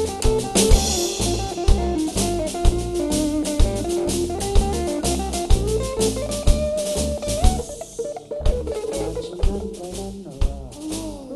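A live band plays an instrumental passage on drum kit and guitars, with a plucked melody line stepping from note to note over steady drum hits and cymbals. About eight seconds in the cymbals drop out and the playing thins and quietens.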